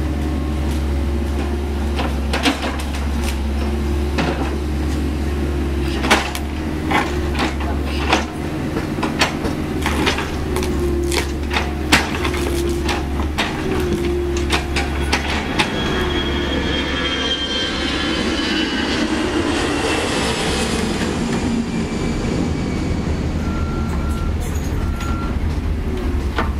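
CAT 304E CR mini excavator's diesel engine running steadily as its steel bucket digs into rocky soil around a stump. Through the first half there are many sharp knocks and clatters of stones against the bucket, and about two thirds in a high scraping squeal of metal on rock.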